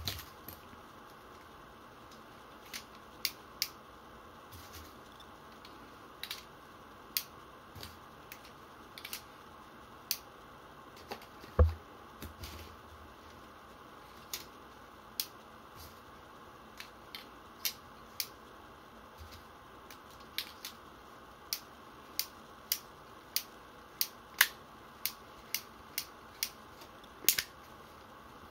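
Sharp metallic clicks and light knocks from a Tokyo Marui SAA.45 Artillery replica single-action revolver being handled while it is loaded with dummy cartridges, with one heavier knock just under halfway in. In the last third the clicks come evenly, about one every half second or so.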